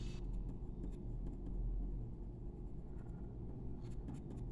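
Colored pencil scratching faintly on paper in short shading strokes, over a steady low hum.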